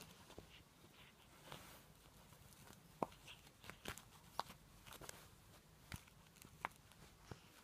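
Faint, irregular clicks and scuffs of a kitten's claws and paws scrabbling on a bedspread as it wrestles and bites a fluffy toy. The sharpest click comes about three seconds in.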